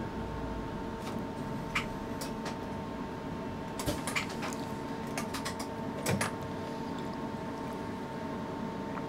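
Steady electrical hum of a train driver's cab, with two constant tones, and scattered clicks and knocks, most of them bunched together around the middle.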